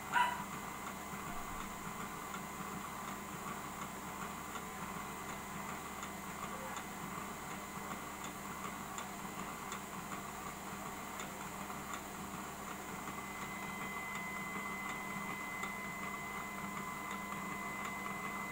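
Automatic home oil press machine running with a steady electric hum and faint light ticking, before any oil has started to flow; a high tone in the hum grows a little louder about two-thirds of the way through.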